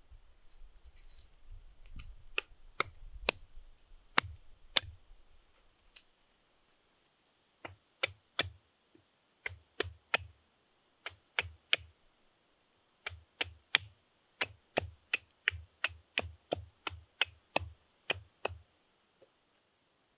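Sharp wooden knocks as a branch is struck to cut it for firewood: a few scattered strikes at first, then a steady run of about two strikes a second with two short pauses, stopping shortly before the end.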